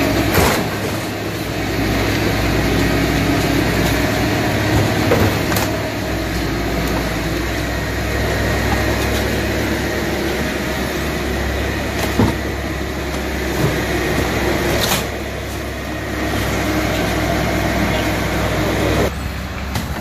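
Engine of a wheeled scrap-handling grab crane running steadily while it lifts a wrecked car body, with a few sharp clanks from the car in the grab.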